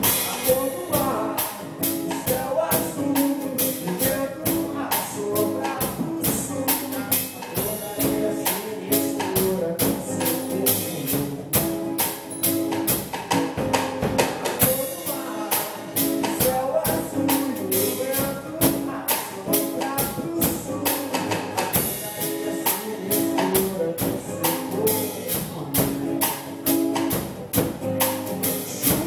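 A band playing a Brazilian song medley, with a fast, steady percussion beat over sustained pitched instruments.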